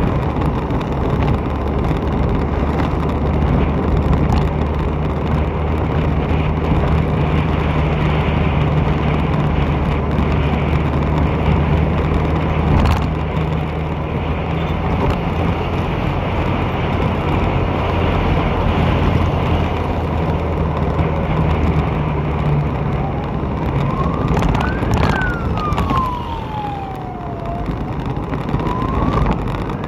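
Road traffic heard from a moving vehicle: a steady low engine hum over wind and road noise, the hum dropping away about two-thirds of the way through. Then a siren wails, rising and falling twice over the last several seconds.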